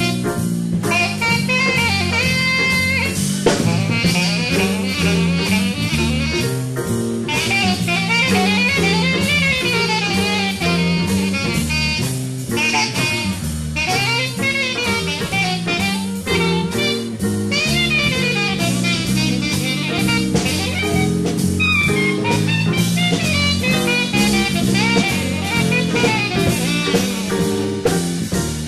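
Live big band playing a blues-based jazz number, with drum kit, bass and saxophones.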